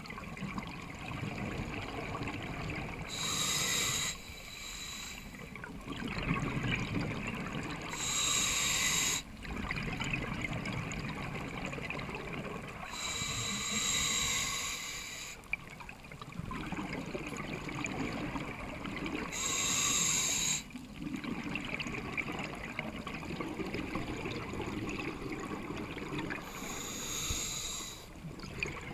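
Scuba diver's breathing through a regulator, heard underwater through the camera housing: a hissing rush five times, about every five to six seconds, with bubbling and gurgling between.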